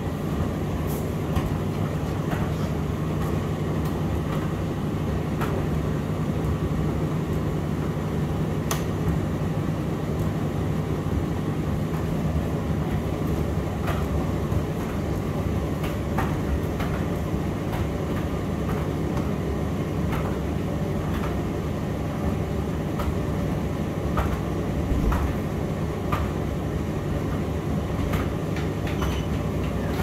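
Indesit IDC8T3 condenser tumble dryer running: a steady hum and rumble from the motor and turning drum, with scattered light clicks.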